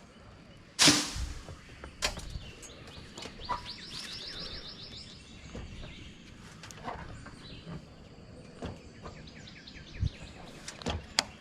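A cut tree limb snapping off and crashing to the ground about a second in, a single heavy hit with a short decay. Afterwards there are scattered light knocks and a fast high chirping trill.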